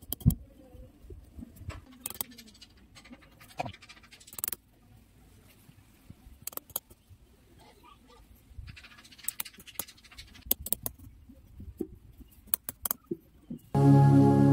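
Hammer striking a thin metal rod held upright in sandy ground: one sharp knock just after the start, then scattered lighter taps and clicks at irregular intervals. Background music comes in loudly near the end.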